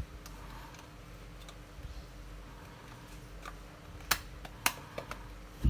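A few sharp clicks and taps from small tools and parts being handled while a Canon EOS 60D camera body is reassembled. The loudest come about four seconds in and again just before the end.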